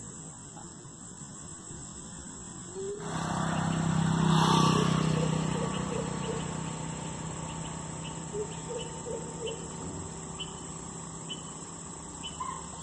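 Steady high chirring of crickets outdoors. About three seconds in, a louder swell of noise with a low hum rises, peaks and fades away over several seconds. Faint short chirps are scattered through it.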